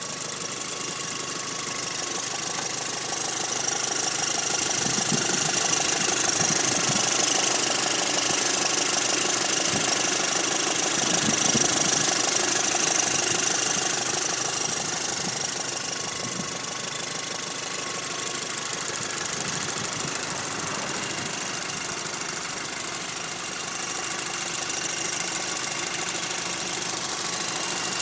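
A 2006 Volkswagen Golf GTI Mk5's turbocharged 2.0-litre four-cylinder engine idling with a steady, fast mechanical rattle. The owner calls it a strange rattle at idle.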